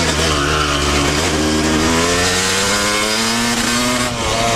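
Yamaha YZ250's single-cylinder two-stroke engine pulling under throttle while riding. Its pitch climbs steadily for about three seconds, then dips briefly near the end before it carries on.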